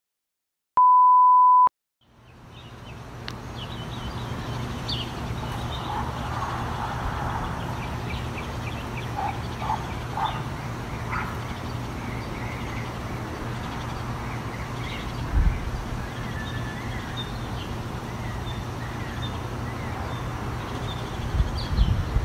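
A single steady high beep about a second long, like an editing test tone, then outdoor ambience fading in: a steady low hum with scattered bird chirps, and a low rumble of wind on the microphone near the end.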